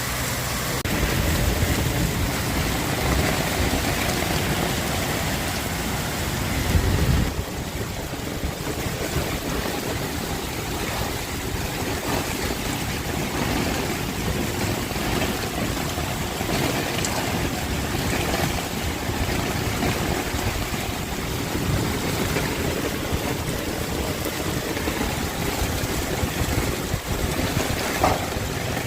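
Heavy rain falling steadily with gusting wind, the wind rumbling on the microphone. The strongest gust comes about seven seconds in and stops abruptly.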